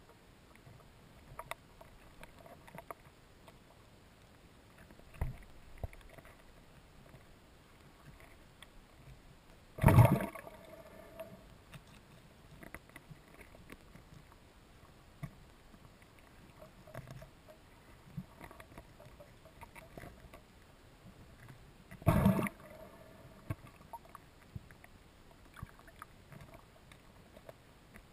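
Underwater sound picked up by a camera moving over a seabed: a faint steady hiss with scattered small clicks, broken twice by a loud short rush, about ten seconds in and again about twenty-two seconds in.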